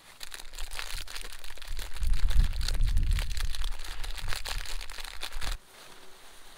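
Close crinkling and rustling with a heavy low rumble of handling, stopping abruptly about five and a half seconds in.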